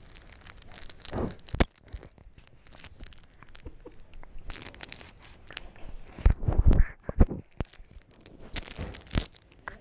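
A baby mouthing a GoPro camera right at its lens and microphone: irregular wet mouth sounds, rubbing and knocks against the camera housing. The loudest bumps come in a cluster about six to seven seconds in.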